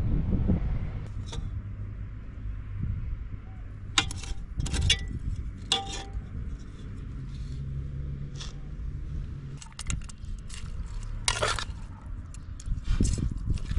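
A metal spoon scraping and clinking against a nonstick cooking pot and a small bowl as cooked rice is scooped out, in irregular clusters of sharp clinks. A low steady rumble lies beneath.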